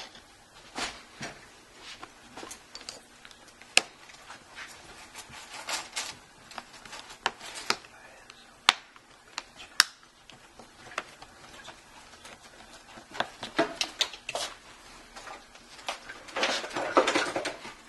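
Plastic pry picks scraping along the seam of a Kindle Fire HD's back cover, with scattered clicks and a few sharp snaps as the cover's retaining clips pop loose.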